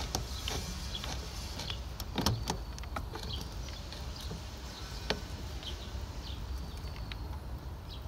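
Screwdriver tightening the worm-drive hose clamp on a car's rubber air-intake hose: scattered small clicks and scrapes, with a sharper click about two seconds in and another about five seconds in, over a steady low background rumble.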